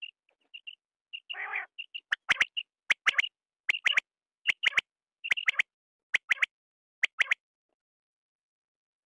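Male common quail calling: sharp, clipped notes in quick groups of two or three, repeated about once every 0.7 seconds, after a few soft high chirps and a short raspy note. The calls stop about two seconds before the end.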